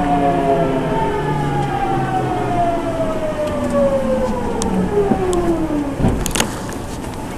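Nankai electric train's traction motors whining as the train brakes into a station, the whine falling steadily in pitch over about six seconds. A short burst of noise follows as it comes to a stop.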